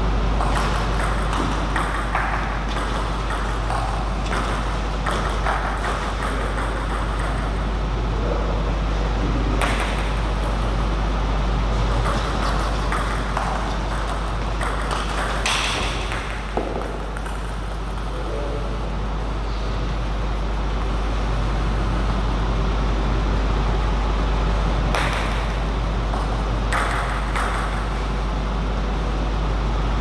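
Table tennis rallies: the ball clicking off the paddles and the table in quick back-and-forth runs, over a steady low hum.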